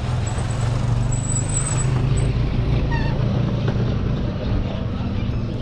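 Motor vehicle engine running with a steady low hum. A thin high-pitched whine sounds briefly during the first two seconds.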